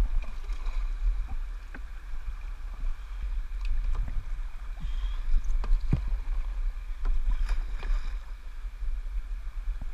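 Kayak paddle strokes in a river: water splashing and dripping off the blade, with scattered light knocks, over a steady wind rumble on the microphone.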